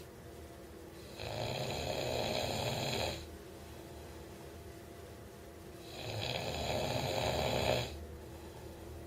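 A person snoring: two long snores of about two seconds each, some four and a half seconds apart, with quiet stretches in between.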